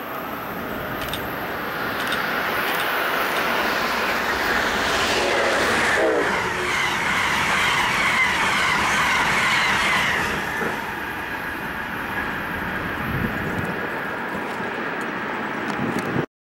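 Amtrak passenger train of stainless-steel Amfleet coaches passing at speed: a steady rush of wheels on rail that builds over the first couple of seconds, is loudest in the middle, eases off, and cuts off suddenly near the end.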